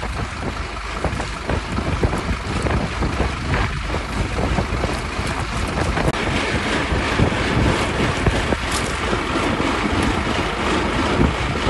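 Wind buffeting a phone microphone over the steady running of a small engine, a continuous rushing noise with no breaks.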